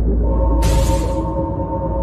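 Background music with a deep, continuous low drone. Held steady tones come in a fraction of a second in, and a short hissing swell sounds around the middle.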